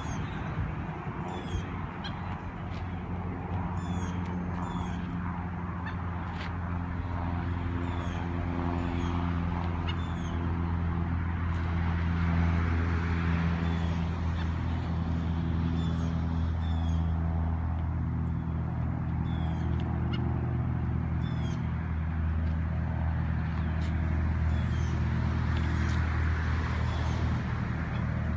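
A steady low motor-like hum throughout, with short high chirps repeating over it about once a second, like small birds calling.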